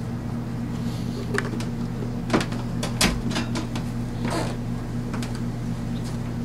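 A steady low hum runs throughout, with a few scattered short knocks and clicks; the loudest come about two and a half and three seconds in.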